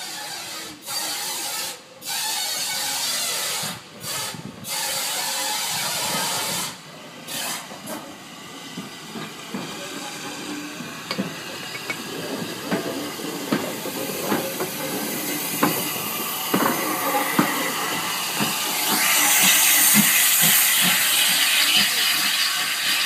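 Southern Railway U class 2-6-0 steam locomotive moving slowly past at close range. Steam hiss cuts in and out for the first several seconds, then a steady hiss with many knocks from the wheels and motion grows louder as it passes, loudest a few seconds before the end.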